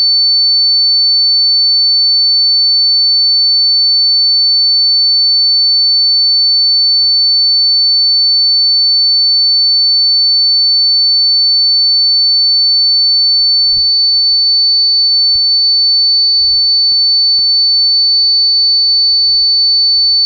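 Steady high-pitched electronic tone, one pure pitch held unbroken at a constant level: a rodent-repelling sound meant to drive rats and mice away.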